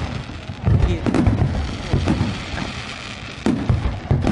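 Aerial fireworks shells bursting in quick succession: a rapid series of deep booms, with crackling hiss between them.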